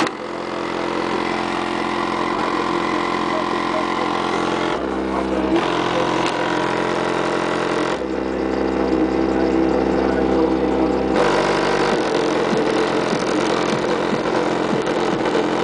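Bass-heavy music from two 10-inch Rockford Fosgate HX2 car subwoofers, muffled through the closed trunk, made of long held notes. Very deep bass notes hit briefly about five seconds in and again from about eight to eleven seconds.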